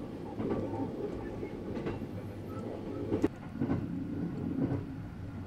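Running noise of the Sunrise Izumo sleeper train heard from inside a cabin: a steady rumble of wheels on rail, with a few irregular clicks over the rail joints, one sharper than the rest a little past halfway.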